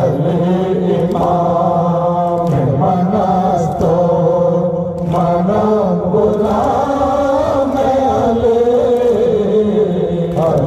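A group of men chanting an Urdu devotional verse together in unison, drawing out long held notes, with brief breaks for breath a few seconds in.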